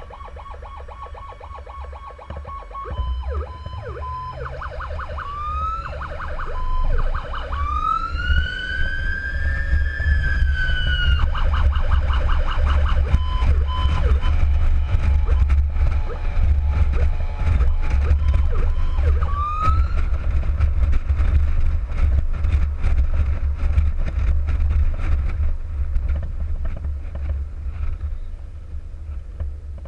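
Electronic emergency siren on a responding paramedic vehicle, switching between a steady tone, a fast pulsing yelp and a slow rising-and-falling wail, over the low rumble of the vehicle driving at speed. After about twenty seconds the siren fades, leaving mostly road and engine rumble.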